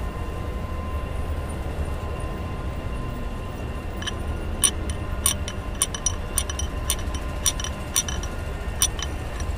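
Metal rod clinking against the gear lever lock pin and housing inside a Mahindra Bolero's gearbox shift tower, as the sunken pin is pressed back into place so the lever can lock. Sharp metallic clinks start about four seconds in and come irregularly, about one or two a second, over a low steady rumble.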